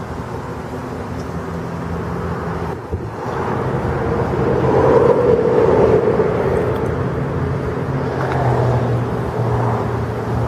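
Motor vehicle engine noise: a steady low hum under a wash of outdoor noise, growing louder about halfway through and easing off a little near the end.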